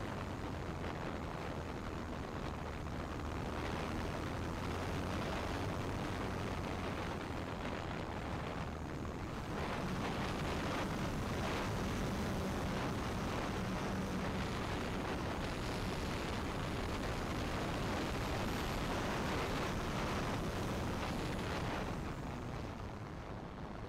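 Wind rushing over the microphone of a camera mounted on top of the wing of an E-flite Cessna 150 Carbon-Z RC plane in flight, with the steady hum of its electric motor and propeller underneath. The motor's tone shifts higher and the sound grows a little louder about ten seconds in, then eases near the end.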